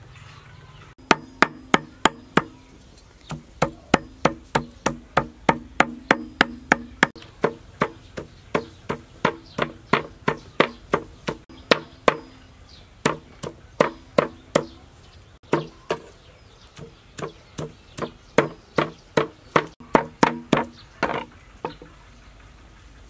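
A knife chopping on a wooden cutting board in a steady run of even strikes, about two to three a second, each with a short woody knock, pausing briefly partway through.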